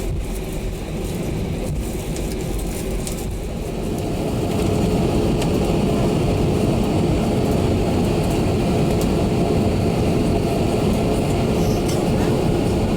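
Airbus A320 cabin interior: the jet engines' drone and the airframe rumble, swelling about four seconds in as the engines spool up, then holding a steady, louder hum.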